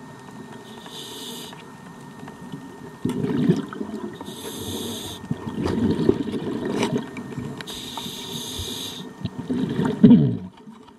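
Scuba diver breathing through a regulator underwater: a short hissing inhale about every three and a half seconds, each followed by the low burbling rumble of exhaled bubbles, the loudest bubble burst near the end.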